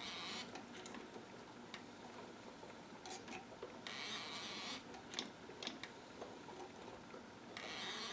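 Spring motor of a Magnemite 610 portable tape recorder being hand-wound: faint ratchet clicks and a few short rasping strokes, each under a second. The spring is being wound while the motor runs.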